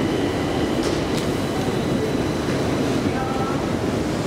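Long metro-station escalator running under a rider: a steady mechanical rumble with a faint high whine through the first half.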